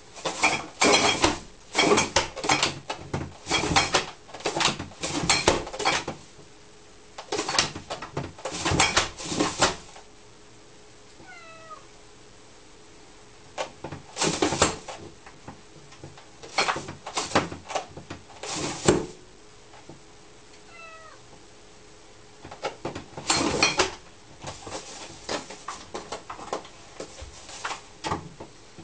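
Plastic cat flap rattling and banging in bursts of rapid knocks as a fat cat squeezes its body through the too-small opening, with pauses between the struggles. A faint short meow comes twice in the pauses.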